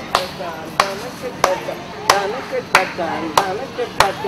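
Thappu frame drum beaten with sticks in a steady dance rhythm: a sharp crack about every two-thirds of a second, with lighter strokes between, and voices heard between the beats.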